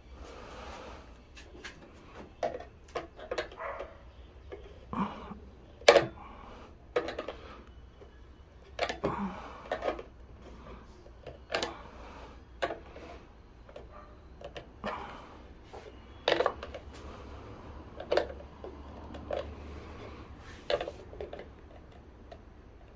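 Irregular knocks and clicks of hand tools and parts being handled while screws are tightened on the wooden case of a kite-line winding machine.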